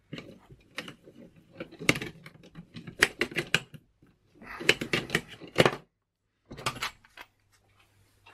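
A bike rack's lock knob being unscrewed by hand: rapid clicking and rattling in several short runs.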